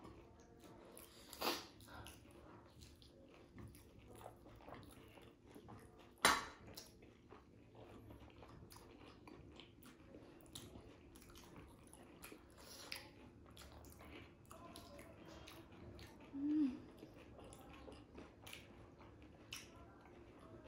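People chewing mouthfuls of dahi puri, with small wet clicks and a few sharper crunches. A short hum-like voice sound comes about sixteen seconds in.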